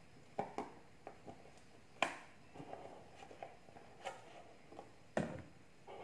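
Handling noise from a paperboard carton of all-purpose cream being squeezed out: scattered light clicks and knocks, the loudest about two seconds in and just after five seconds.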